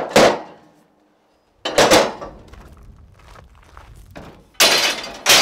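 Metal scaffolding pieces clanking and scraping against each other as they are laid onto a stack of scaffold frames: a clank at the start, another about two seconds in, and a longer scraping clatter near the end.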